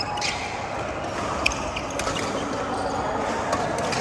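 Badminton rackets striking a shuttlecock: a few sharp, irregularly spaced hits, the loudest about a second and a half in, over steady background noise.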